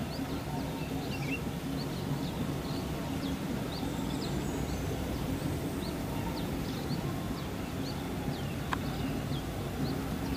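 Diesel locomotive's engine running with a steady low hum as it comes through the tunnel toward the mouth, with many short bird chirps over it.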